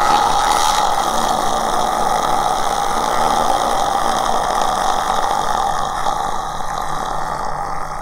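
Horror sound effect: a long, unbroken, rasping ghost voice held as one continuous guttural utterance, easing slightly near the end.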